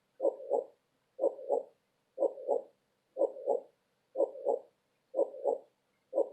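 Heartbeat sound: a steady lub-dub double beat about once a second, roughly 60 beats a minute, with silence between beats.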